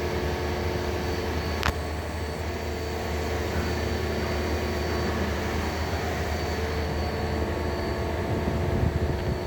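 Mazak Quick Turn 8N CNC lathe running with a steady machine hum and several held whining tones. One sharp click comes just under two seconds in.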